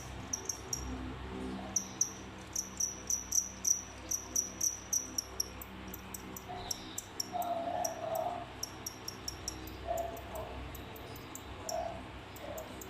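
Male cricket chirping: trains of sharp, high, rapid chirps that break off and start again, the song males make to attract a mate. A few short, lower-pitched calls come in about halfway through and near the end.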